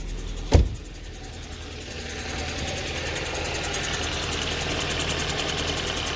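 A car engine idling just after a jump start, with one sharp thud about half a second in. From about two seconds on the engine grows louder, with a fast, even ticking.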